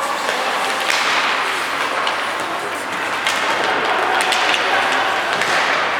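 Ice hockey play on the rink: a steady scraping hiss of skates on ice, scattered with sharp clacks and knocks of sticks and puck.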